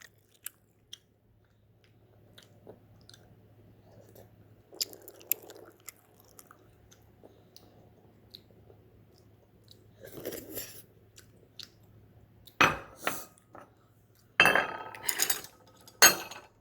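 Mouth noises of someone eating ramen noodles: chewing with small wet clicks, and several louder noisy bursts in the second half. A faint steady hum lies underneath.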